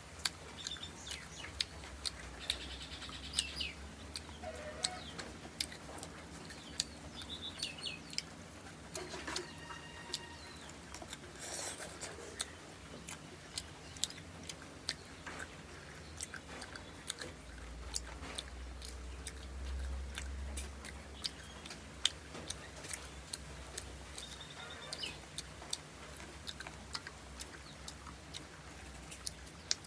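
Close-miked eating sounds: chewing and sharp wet mouth clicks and smacks, many times over, as rice and fish curry are eaten by hand. A few short high chirps sound now and then, and a low rumble comes in briefly about two-thirds of the way through.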